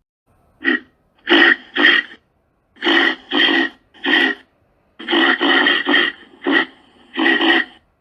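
A reindeer calling in a quick series of short, hoarse calls, about a dozen of them, some coming in close pairs.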